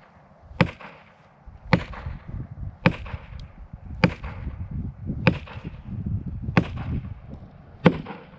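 An axe striking hard at a tree being felled: seven heavy blows, about one every 1.2 seconds.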